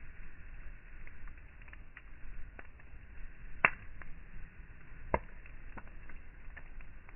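Wood fire of split logs crackling, with scattered small ticks and two sharp pops, the loudest about three and a half seconds in and another about five seconds in.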